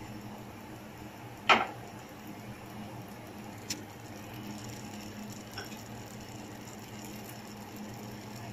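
A metal spoon clinks once, sharply, against an enamel cooking pan about one and a half seconds in, with a lighter tick a couple of seconds later, over a faint steady hum.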